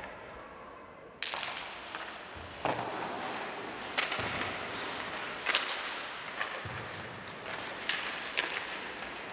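Ice hockey play: a steady scraping hiss of skate blades on the ice starts suddenly about a second in, broken by several sharp cracks of sticks and puck, the loudest halfway through.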